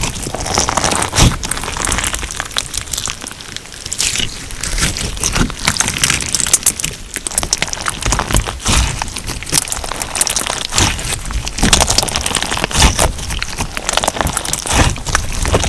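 Crunchy slime mixed with sugar beads being squeezed and pressed by hand, giving a dense, continuous run of crackles and pops.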